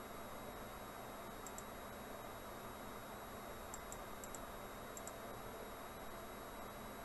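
Several faint computer-mouse clicks, some in quick press-and-release pairs, over a steady recording hiss.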